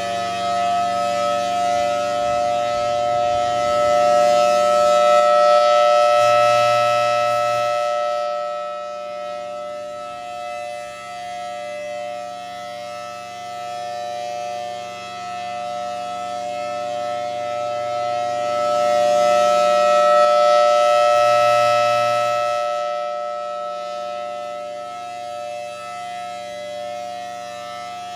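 Federal Signal Thunderbolt 1000BTSB outdoor warning siren sounding a steady full-alert tone. The sound swells and fades twice as the rotating siren head sweeps toward and away from the listener.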